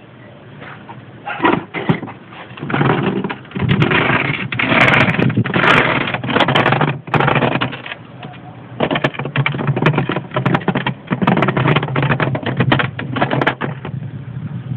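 Irregular metallic clicking, clattering and scraping as a small scrap-metal model motorcycle made of bolts and nuts is handled and moved about on a steel workbench, in bursts with short pauses.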